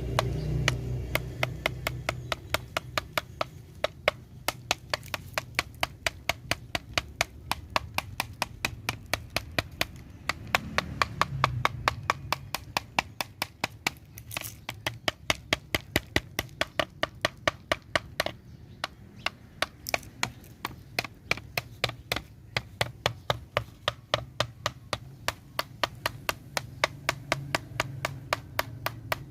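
A steady run of sharp taps or knocks, about three to four a second, over a faint low hum.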